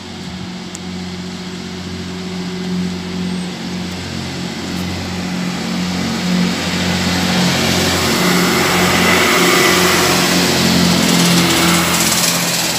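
Class 158 diesel multiple unit passing through: the steady drone of its underfloor diesel engines with a rising rush of wheels on rail, growing louder as the train comes past and loudest shortly before the end.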